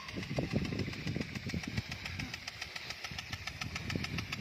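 Rain gun sprinkler running: the water jet hisses while the drive arm ticks in a rapid, even rhythm, with an uneven low rumble underneath.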